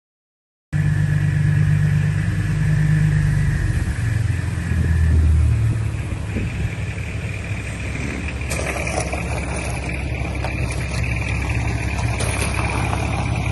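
Holden VE Commodore engine running, noisier from about eight seconds in.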